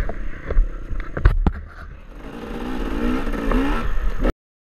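Scrapes and sharp knocks as an enduro motorcycle is handled on a dirt slope, then the bike's engine revving up, rising in pitch and getting louder from about two seconds in. The sound cuts off abruptly near the end.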